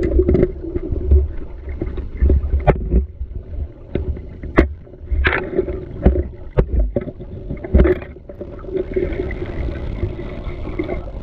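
River water churning and splashing close to the microphone, with a heavy low rumble and irregular sharp knocks.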